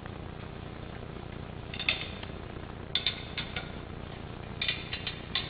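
Sharp metallic clicks and clinks from a dent-pulling clamp and wrench being worked on a row of pull pins welded along a dented car body panel. They come in three short clusters, about two, three and nearly five seconds in, over a low steady shop hum.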